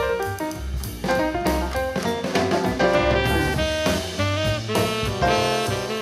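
Jazz-style music with a steady drum beat, about two beats a second, played back through a Vifa Copenhagen Bluetooth speaker and picked up by a microphone in front of it.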